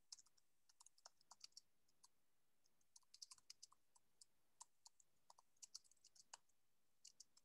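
Faint computer keyboard typing: many short, irregular clicks in quick runs.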